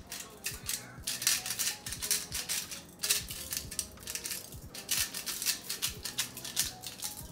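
Hand-twisted pepper grinder cracking a peppercorn medley: rapid dry clicking and crunching in bursts, with short breaks every second or two.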